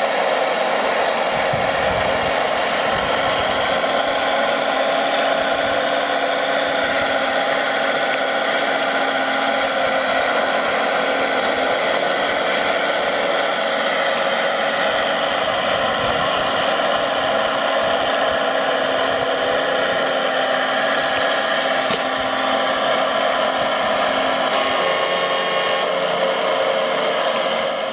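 Small electric motors and gearboxes of radio-controlled model construction machines running with a steady whine, with some scraping and rattling.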